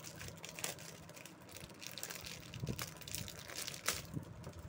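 Clear plastic packaging crinkling and crackling in irregular bursts as hands open the packet around a phone back cover.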